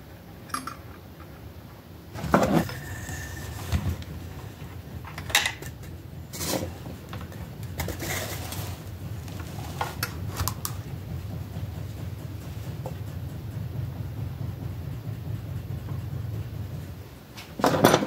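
Clinks and knocks as the metal and wooden parts of a whirligig's wooden box are handled. Under them a low steady hum starts about two seconds in and stops shortly before a final loud knock near the end.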